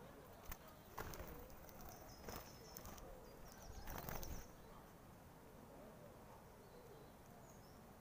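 Faint, thin high-pitched calls of small songbirds, mostly in the first half, with a few soft knocks among them over a quiet outdoor background.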